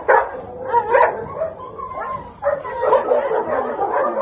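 A dog whimpering and yelping in a run of short cries that waver up and down in pitch.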